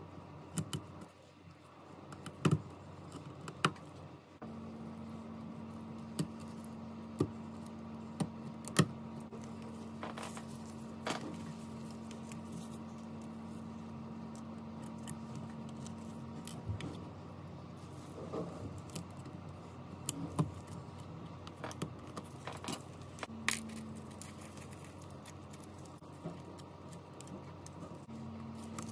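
Small metal tools clicking and tapping against a phone and work surface: scattered sharp clicks throughout. A steady low hum runs from about four seconds to about sixteen seconds in, and comes back briefly near the end.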